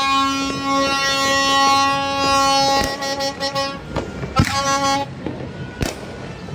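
A horn sounding one long steady blast of about four seconds, then a short second blast, over scattered firework pops and bangs.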